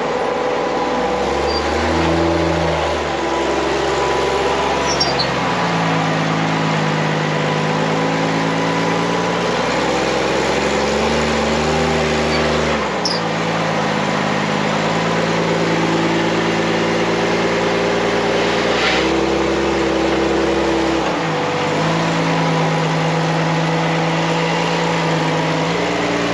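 Off-road buggy engine working under load on a steep rock climb, its revs stepping up and down and holding at each level again and again as the driver feeds throttle.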